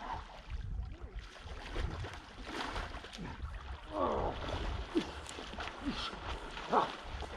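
Lake water splashing and sloshing as a person wades into the water over slippery stones, with wind rumbling on the microphone. A few short falling cries break through from about four seconds in.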